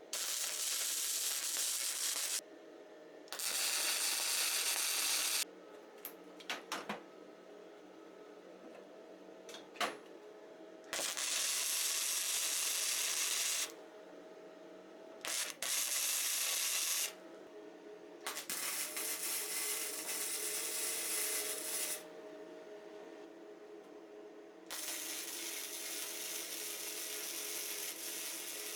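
Electric arc welder laying short beads: about six bursts of steady hiss, each two to four seconds long, starting and stopping abruptly, with a few sharp clicks between them and a faint steady hum underneath.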